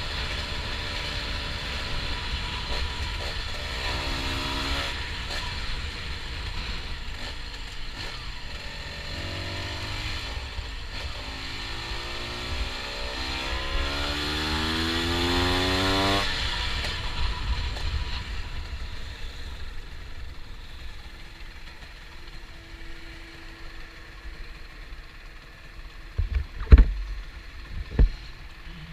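Honda NSR125 two-stroke single-cylinder engine accelerating hard, its pitch climbing in several rising sweeps as it is shifted up through the gears, then closed off about halfway through and dropping to a low, steady running as the bike slows. Wind rumbles on the microphone, and two sharp loud knocks come near the end.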